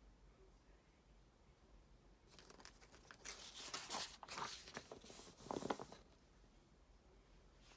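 Paper pages of a bound workbook being flipped by hand: a rustling run of page turns lasting about three and a half seconds, loudest near the end as the last page flaps down.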